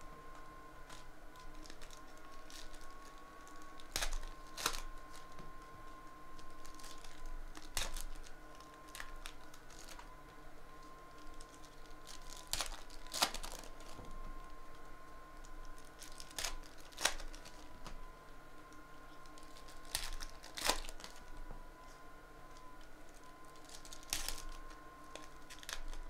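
2017-18 Panini NBA Hoops foil card packs crinkling and tearing as they are opened, with scattered sharp clicks and snaps of the cards and packs being handled. A faint steady tone hums underneath.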